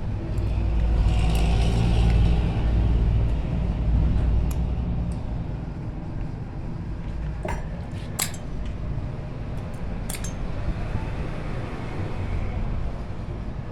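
Low rumble, loudest in the first few seconds, with a few sharp metallic clinks of metal parts later on.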